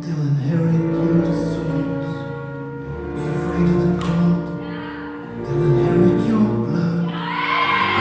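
Song with singing over held low chords; a voice swells higher and louder near the end.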